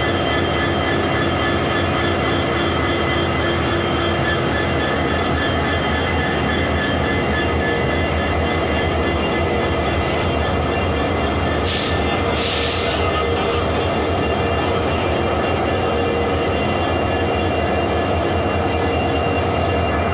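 Diesel locomotive running close by: a steady engine drone with several held tones. Two short hisses of air come about twelve seconds in.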